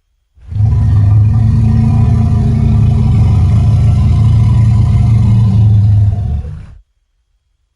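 Designed Bigfoot creature roar, layered from gorilla, low-pitched elephant and stock dinosaur sounds: one long, low, steady roar of about six seconds that fades out at the end.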